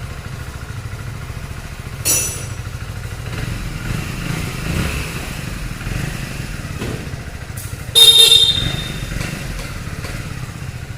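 Hero Splendor Plus Xtec's single-cylinder four-stroke engine running steadily with an even low beat after its first service oil change. Two brief louder sounds cut in about two and eight seconds in, the second the loudest and horn-like.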